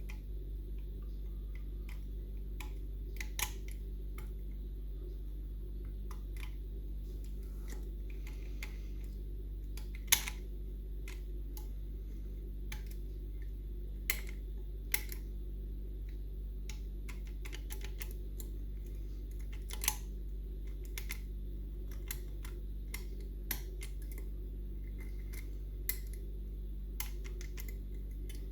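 Small, sharp metallic clicks from lever-lock picking tools working the levers inside a Union Strongbolt mortice lock, one every few seconds and irregular, over a steady low hum.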